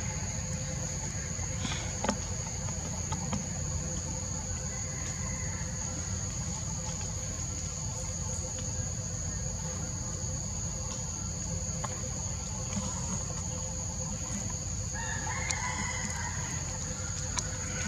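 Forest ambience: a steady high-pitched insect drone with a low rumble underneath. Near the end, a drawn-out bird call lasting about two seconds.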